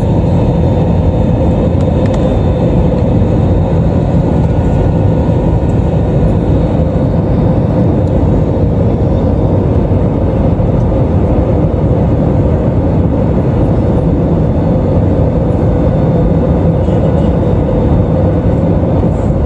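Cabin noise of an Airbus A320 on final approach, heard from a window seat over the wing: the jet engines and rushing airflow make a steady noise with a constant hum running through it.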